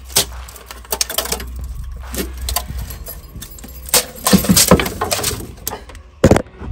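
Aluminium cylinder head of a GM 5.3 LS V8 being worked loose and lifted off the engine block: irregular metal clunks, knocks and scrapes, loudest about four seconds in as the head comes free.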